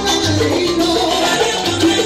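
Salsa music with maracas and conga drums over keyboard and a bass line.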